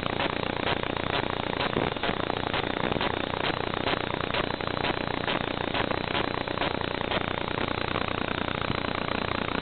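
Steady hiss of raw static recorded by the Aomway Commander V1 FPV goggles' DVR, with faint regular ticks about twice a second that fade out about seven seconds in.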